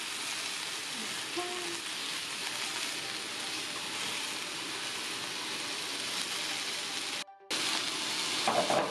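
Beef and vegetables sizzling steadily as they grill on a heated ceramic plate, with a brief break in the sound about seven seconds in.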